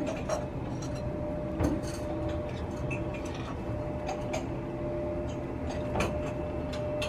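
Airbus A320's CFM56 jet engines at takeoff power heard from afar: a steady low rumble with a held tone. Several sharp clicks close to the microphone sound over it.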